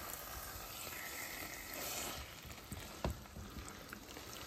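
Spaghetti cooking in thick tomato sauce in a skillet, sizzling quietly as a silicone spatula stirs through it, with a sharper click about three seconds in.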